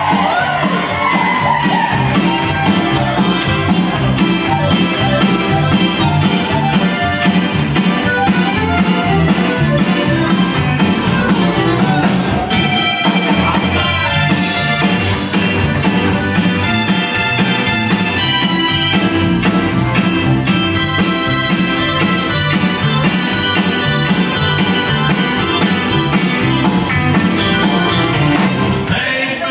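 Live Tex-Mex band playing an upbeat song with a steady drum beat: button accordion, electric guitar, drum kit and keyboard, with a trumpet near the end.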